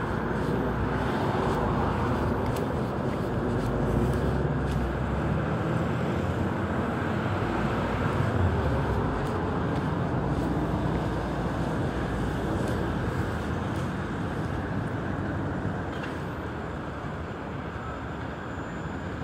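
Steady city street traffic noise, cars going by on the road, easing off a little near the end.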